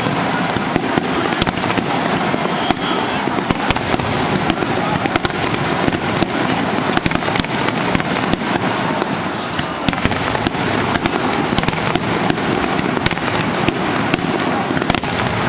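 Aerial fireworks display: a continuous barrage of shell bursts and crackling, many sharp bangs in quick succession with no pause between them.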